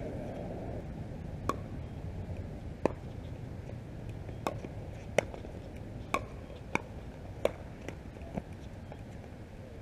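A pickleball rally: paddles striking the hard plastic ball in a string of sharp pops, about nine in all and spaced irregularly, roughly half a second to a second and a half apart.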